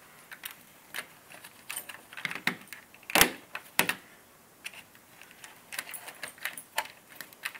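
Irregular clicks, taps and scrapes of a metal multi-tool's tip and fingers pushing thermostat wires into the wall box around a plastic base plate, with the sharpest click about three seconds in.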